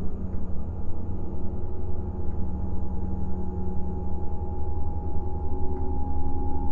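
Low ambient soundtrack drone: a deep, steady rumble under held tones, with a higher tone coming in about a second in and growing stronger.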